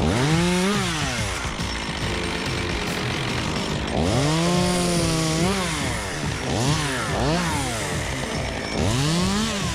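Two-stroke chainsaw revved up and let back down several times. It blips at the start, is held at full throttle for about a second and a half in the middle, gives two quick blips, and rises again near the end.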